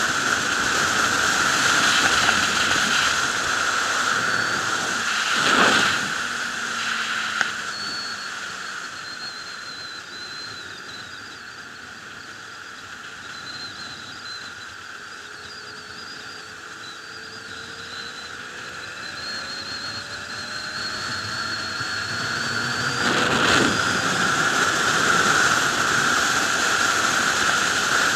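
Wind rush and engine of a sport motorcycle riding on a highway. The rush fades through the middle and builds again in the last few seconds, with faint gliding engine tones under it.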